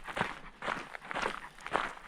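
Footsteps of a hiker walking along a trail at a steady pace, about two steps a second.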